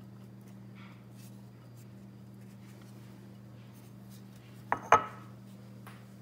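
Rubber spatula scraping batter out of a mixing bowl onto a waffle iron: faint scrapes and light ticks, then two sharp knocks close together about five seconds in, over a low steady hum.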